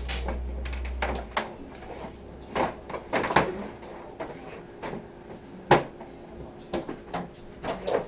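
Irregular clicks, knocks and rattles of hand tools and a plastic toolbox being handled while workmen take down an old mounted microwave, with one louder knock about two-thirds of the way through. A low hum stops about a second in.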